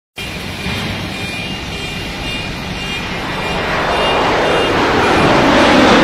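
Terex backhoe loader's diesel engine running with a low rumble, growing steadily louder over the second half.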